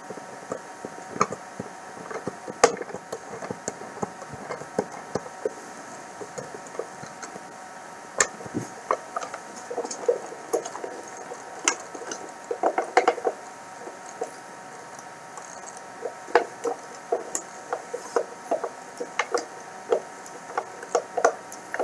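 Hand screwdriver driving a screw through the metal anti-stringing teeth into the cashbox's plastic: a long run of irregular clicks and creaks as the screw turns and the box is handled.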